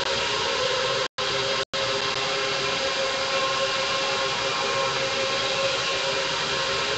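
Electric guitar drone: a steady, dense wash of distorted sustained guitar with a few held tones, not changing. The audio drops out twice very briefly, about a second in and again half a second later.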